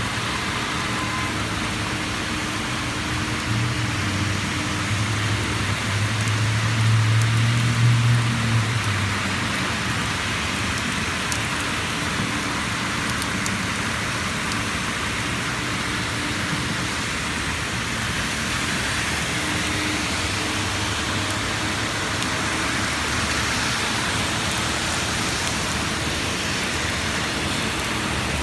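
Steady, fairly heavy rain falling and splashing on hard surfaces. A passing vehicle's low engine hum grows louder in the first several seconds, peaks about seven to eight seconds in, and fades.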